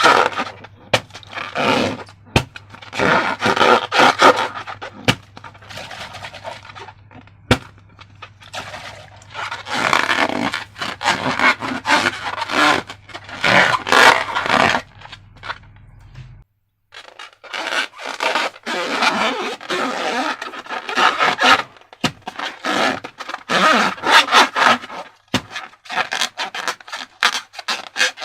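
Hands working balloons and slime: irregular scraping, rubbing and squishing noises with scattered sharp clicks. Near the middle a faint low hum underneath cuts off abruptly.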